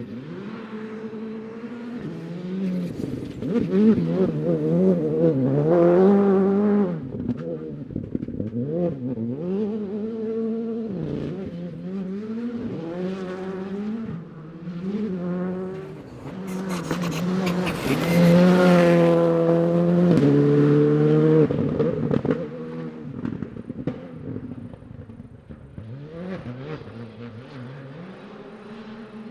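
Rally car engine revving hard and rising and falling in pitch through repeated gear changes. It is loudest about six seconds in and again about eighteen to twenty-one seconds in, where a burst of hiss from tyres and gravel joins it. The sound fades toward the end.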